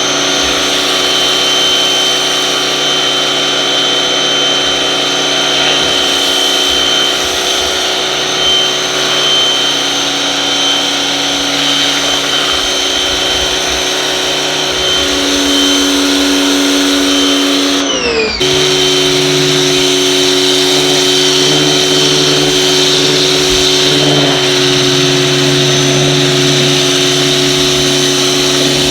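Electric pressure washer running under load, spraying through a rotary turbo nozzle: a steady motor whine with spray hiss. It spins up with a rising pitch at the start, and just past halfway it briefly cuts out with a falling pitch, then runs steady again.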